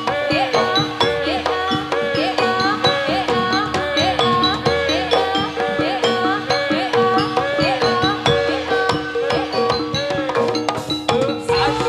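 Javanese gamelan music accompanying a jathilan dance: hand drums beat in a fast, steady rhythm over repeated pitched metal percussion notes.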